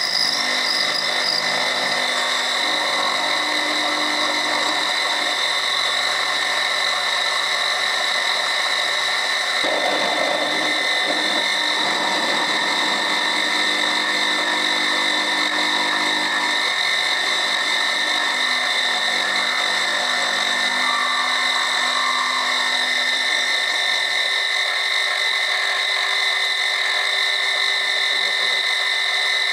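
Milling machine running with a steady high whine while a 10 mm cutter mills a slot in a mild steel bar. There is a rougher, noisier stretch of cutting about ten seconds in.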